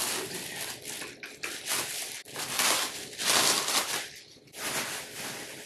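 Clear plastic wrapping crinkling and rustling as it is pulled off a floor lamp's bundled wooden tripod legs, in uneven surges, loudest a little past the middle.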